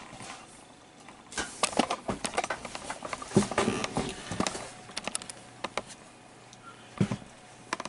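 Irregular light clicks, taps and rustles of cables and plugs being handled and moved about, with a couple of duller knocks.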